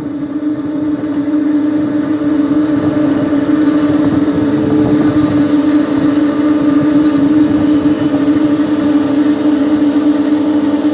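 Motor vehicle running: a steady engine hum with a rushing road noise that swells through the middle.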